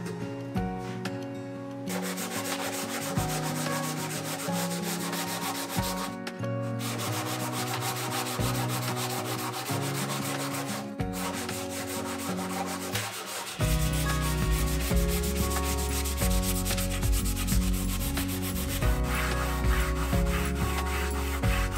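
Sandpaper rubbed by hand back and forth over the wooden blanket-chest case in final sanding, a steady scratchy rasp starting about two seconds in. Background music with a bass line plays under it, the bass getting heavier about two-thirds of the way through.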